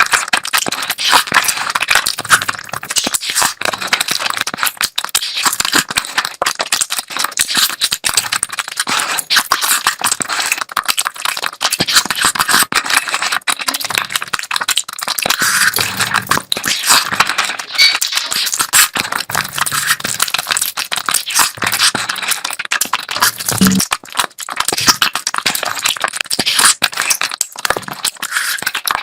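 Close-miked eating sounds: wet chewing and lip smacks of someone eating curry, a dense, continuous run of crackly clicks.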